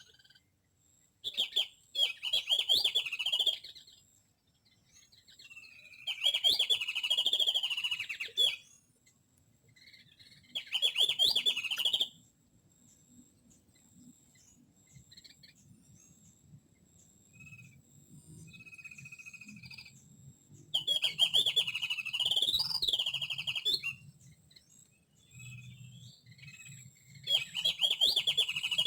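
Chattering chirps of small songbirds in five bursts of two to three seconds each, with gaps between, as a lure call to draw wild birds to a glue trap.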